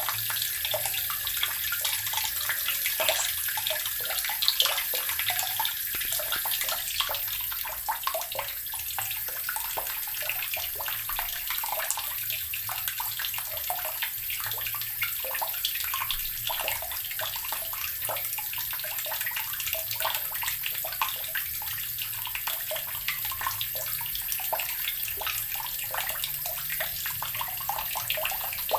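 Water running steadily from a tap and splashing into water below, a continuous hiss full of small spatters.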